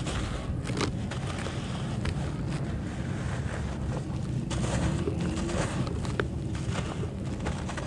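Dry red dirt crumbled by hand: a moulded clump rubbed and broken apart, with powdery soil and small lumps sifting and dropping into a basin in soft, scattered crunches. A steady low wind rumble on the microphone runs underneath.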